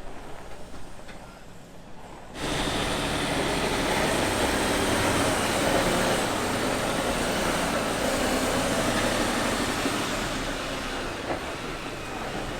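Mercedes-Benz Arocs truck on the move: diesel engine running with heavy rolling noise. It is quieter at first, then becomes suddenly louder and fuller about two seconds in.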